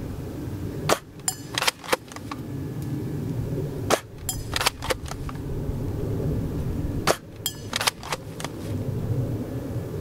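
CROWN Type 96 Junior spring-powered airsoft rifle being cocked and fired: three clusters of sharp clicks and snaps, about three seconds apart, as the BBs hit a plate target. A steady low rumble of wind on the microphone runs underneath.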